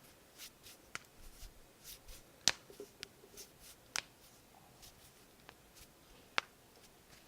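Knuckles cracking: a handful of sharp single pops, a second or two apart, with soft rustling of the hands between them.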